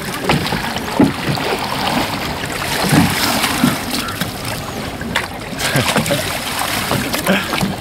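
Wooden rowboat being rowed by hand: the oars splash in the water and knock irregularly against the wooden hull, over a steady rush of noise.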